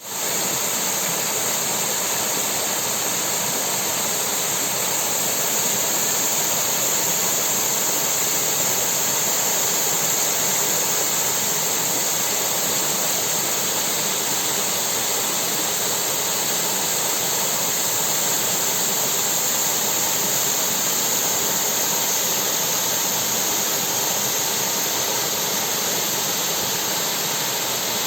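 Waterfall: the steady rush of falling water, an even noise with no change.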